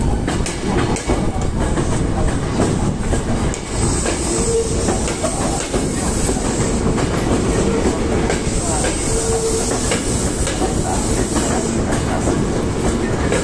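Hankyu 1300 series electric train rolling slowly over the points into the depot, its wheels clattering over rail joints and switches.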